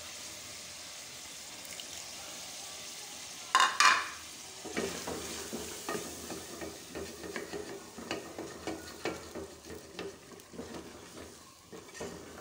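Chicken masala sizzling in oil in an aluminium pressure cooker during bhuna frying, while a wooden spatula stirs and scrapes it. From about five seconds in there are many quick scrapes and light knocks of the spatula against the pot. A brief loud burst comes about three and a half seconds in.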